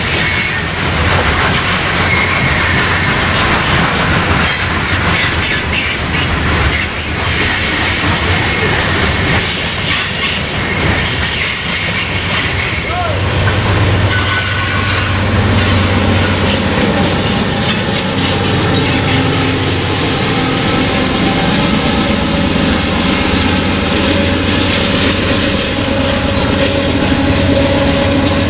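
A train rolling past at close range, steel wheels clattering over the rail joints with squealing. In the second half a steady low hum and held tones come up under the wheel noise.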